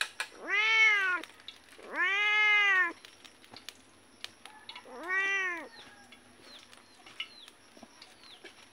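Cat meowing three times: two long meows in the first three seconds and a shorter one about five seconds in, each rising and then falling in pitch.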